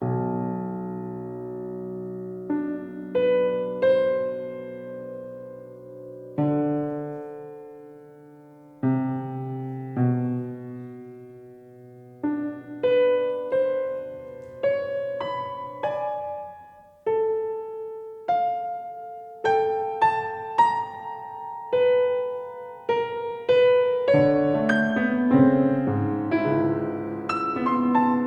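Slow solo piano music: a low chord rings out at the start, then single notes and chords come a second or two apart, each fading away. Near the end the notes come closer together and louder.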